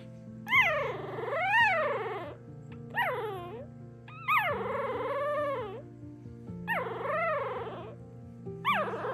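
Newborn puppies squealing and crying, about five high, wavering cries that rise and fall in pitch: the calls of very young puppies calling for their mother.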